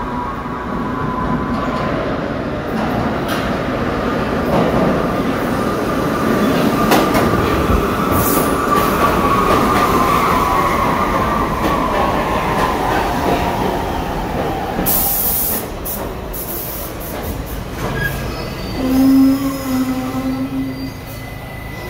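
New York City subway train running through the station with a high whine that rises slightly and then sinks away over the first dozen seconds. A run of sharp clicks follows near the end.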